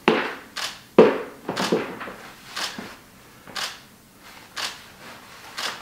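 DSLR shutter firing again and again on an interval timer, about eight sharp clicks, mostly a second apart.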